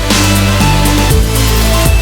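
Electronic house music with a heavy bass line and a steady beat, between sung lines.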